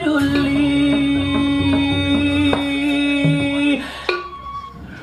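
A female stage singer holds one long sung note into a microphone over drum beats. The note ends a little before four seconds in.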